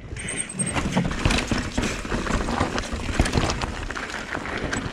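Norco Sight full-suspension mountain bike rolling fast off a wooden deck and onto loose gravel: tyres crunching over dirt and stones while the bike rattles with a quick, uneven run of knocks.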